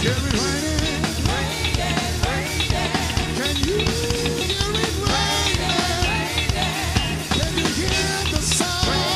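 Live gospel worship music: a man sings into a handheld microphone over a full band with drums and bass.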